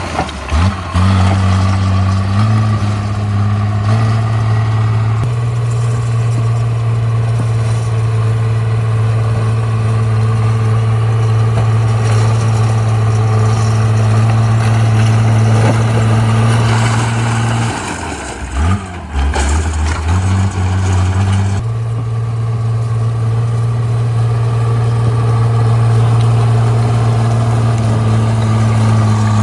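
Komatsu D37P bulldozer's diesel engine running steadily at working speed. Its pitch shifts a few times, and about 18 seconds in it drops to a lower, quieter note for a few seconds before rising back up.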